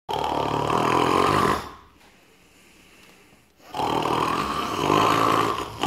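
A person snoring loudly: two long snores of roughly two seconds each, with a quiet pause of about two seconds between them.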